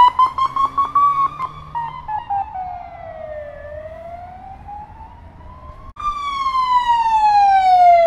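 Budapest police car siren wailing in slow sweeps, the pitch climbing and falling over a few seconds, with rapid pulsing beats over the first couple of seconds. It fades, then cuts back in loud about six seconds in on a falling sweep.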